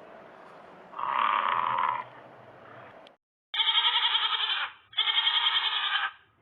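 An animal calling: one call about a second long, then after a short break two quavering, pulsing calls of about a second each, one just after the other.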